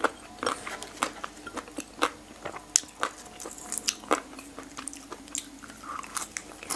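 Close-miked chewing of boiled pig ear, the cartilage giving many sharp, irregular crunches.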